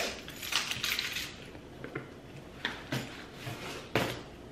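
A bunch of metal keys on a keyring jingling as they are handled, then a few sharp clicks and scrapes of a key against a cardboard box, the last one, near the end, the loudest.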